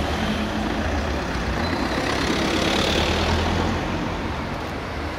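Road vehicle engine and traffic noise, swelling to its loudest about three seconds in, then easing.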